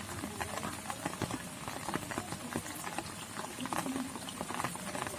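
Dense, irregular wet patter and clicking, like drizzle and muddy water being stirred in a waterlogged rice paddy.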